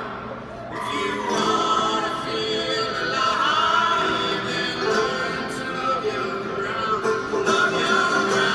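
Live acoustic folk band playing, with strummed string instruments and voices singing, heard from within the arena crowd.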